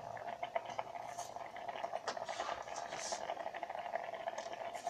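Tomatoes simmering in water in an electric kettle: a steady bubbling crackle of many small pops.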